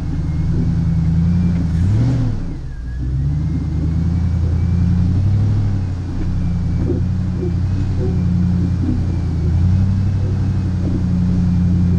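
Jeep Wrangler Rubicon engine running at low revs while crawling up a rocky trail, its note dipping briefly about two seconds in and then picking up again. Scattered light knocks of the tyres and chassis over rocks, and a faint high whine over the engine.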